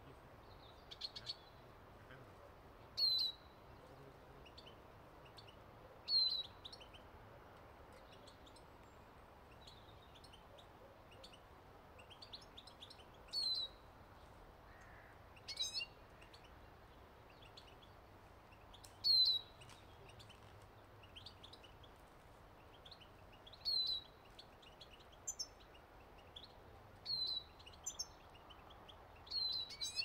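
Small songbirds calling: a loud, short, falling call every few seconds, with fainter twittering in between.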